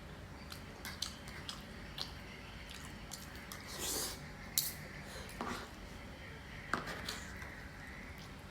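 Close-miked eating of gado-gado: chewing and mouth sounds with scattered sharp clicks and a short scrape about four seconds in.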